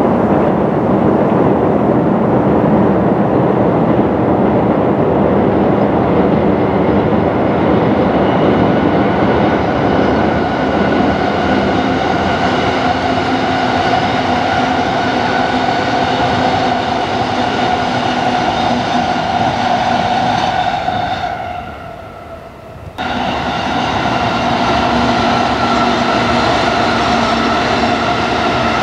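A JR East E233-0 series ten-car electric train crossing a steel railway bridge: a loud, steady rumble of wheels on the bridge, with steady humming tones rising out of it after the first several seconds. Near the end the sound falls away for about two seconds, then comes back abruptly.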